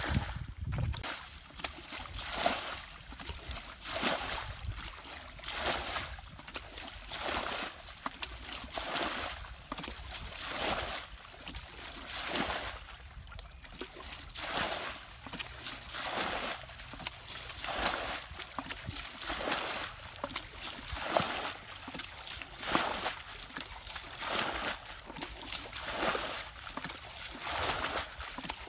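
Water being bailed out of a shallow muddy pool with a plastic basin: a scoop and a splashing throw repeated steadily, about one every second and a half to two seconds.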